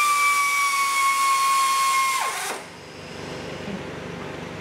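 Air ratchet with a 13 mm deep-well socket spinning off an exhaust manifold nut: a loud, steady high whine that sags slightly in pitch, then cuts off and winds down quickly about two and a half seconds in.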